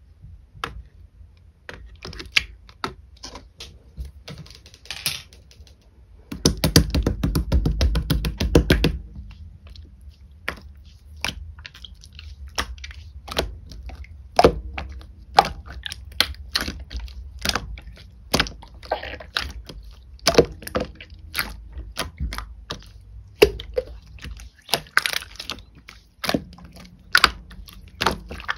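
Pearl slime being squeezed and pressed, giving a run of irregular sharp clicks and pops, with a dense burst of rapid crackling about seven seconds in that lasts some two seconds.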